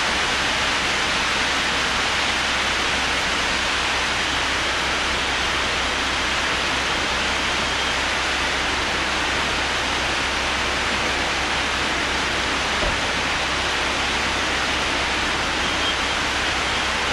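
Steady, even rushing noise from a ready-mix concrete truck discharging down its chute during a slab pour; it cuts off abruptly at the end.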